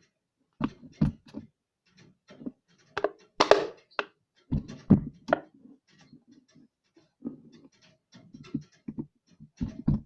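Slime with small beads mixed in being squeezed and worked by hand: irregular wet squelches, pops and clicks.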